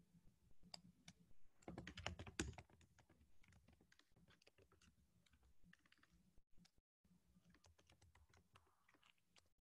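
Faint typing on a computer keyboard: scattered keystrokes with a quick run of them about two seconds in, over a faint low hum.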